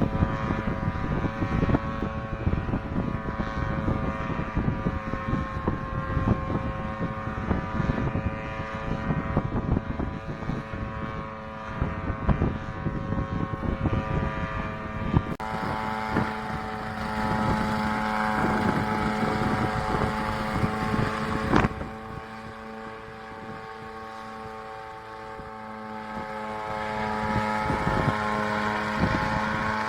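Unmanned helicopter's engine and rotors running steadily, a constant multi-tone whine over wind buffeting on the microphone. The sound changes abruptly twice, dropping quieter for a few seconds about two-thirds of the way through before building back up.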